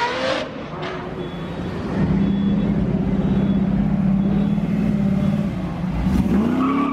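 High-performance car engine accelerating, its pitch rising at the start, then running at steady revs for a few seconds with a steady drone, and rising in pitch again near the end before cutting off abruptly.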